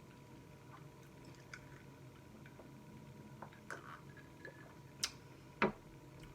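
Close-up mukbang eating of spaghetti with meatballs: soft wet mouth clicks and smacks while chewing, with two sharper clicks about five seconds in, the second the loudest, over a faint steady hum.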